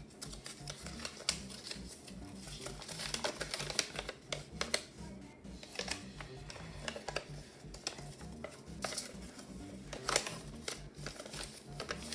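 A folded paper instruction leaflet being unfolded and handled, crinkling and rustling in clusters of sharp crackles, loudest about three to five seconds in and again about ten seconds in. Quiet background music with a low bass line runs underneath.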